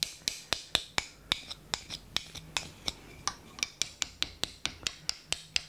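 A small hand tool worked in short, quick strokes against the repaired rosewood tote of a hand plane, giving sharp ticks about four times a second.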